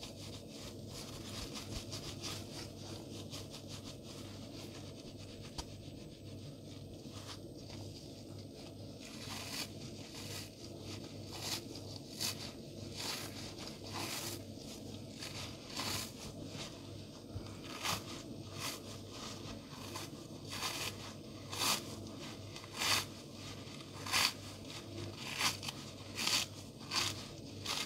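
Soapy yellow kitchen sponge squeezed and torn apart by gloved hands: a fine wet crackle of foam at first, then from about nine seconds in a series of crisp ripping crunches, roughly one a second, louder near the end.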